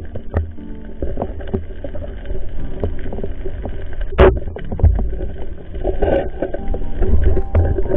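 Underwater sound through the camera's waterproof housing in rough surge: a heavy low rumble of moving water with many crackling clicks, and one brief louder rush about halfway through.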